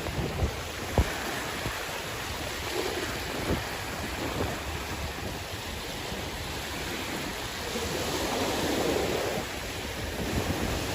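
Sea waves washing ashore, a steady rush that swells louder for a moment about eight seconds in, with a few short low thumps of wind buffeting the microphone.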